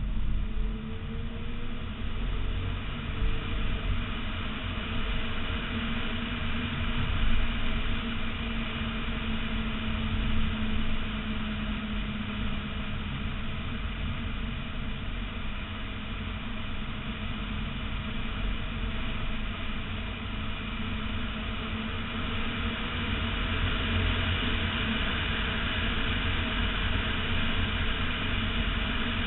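Wind rushing over a mirror-mounted camera on a BMW E46 M3 lapping a wet track, with road and tyre noise and the car's straight-six engine faintly beneath it at a steady note.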